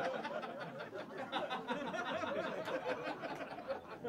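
Audience laughing after a punchline, many people at once, dying down near the end.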